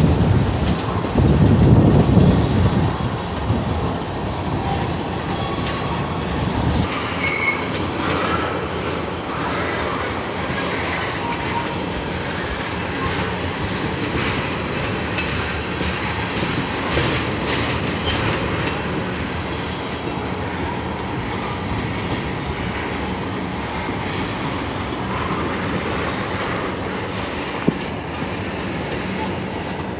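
Freight train of loaded tank cars rolling past on steel wheels. It starts with a heavy close rumble, then settles into steady wheel-on-rail noise with repeated clicks over the rail joints and a few brief wheel squeals.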